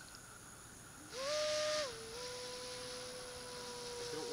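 Electric motor and propeller of a fast RC foamboard plane overhead: about a second in, a short throttle burst sends the whine sharply up in pitch with a rush of air. It then drops back to a lower, steady whine at part throttle, sagging slightly in pitch.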